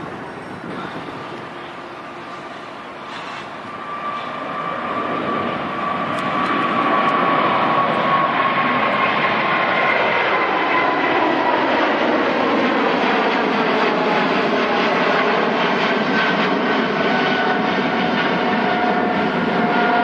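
Boeing 777-200ER's GE90 turbofan engines at takeoff thrust as the jet climbs out overhead. The jet roar swells over the first several seconds, with a whine falling slowly in pitch as it passes, then holds loud and steady.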